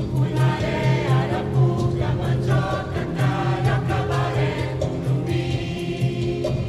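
Church choir singing over instrumental accompaniment with a steady beat.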